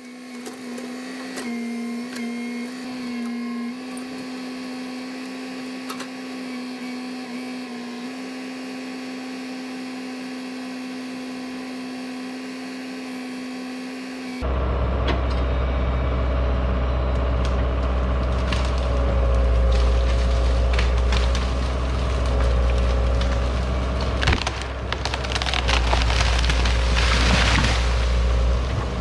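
A small engine runs steadily at one high pitch; then, about halfway in, a tractor engine takes over with a deep rumble as wood cracks and splinters, the cracking thickest near the end as the dead tree's roots tear loose and the tree goes over.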